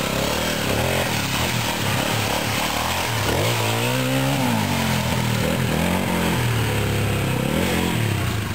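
Honda XL250R dirt bike's single-cylinder four-stroke engine revving under load as it rides through mud: the pitch climbs sharply about three seconds in, drops back, then rises and falls again near the end.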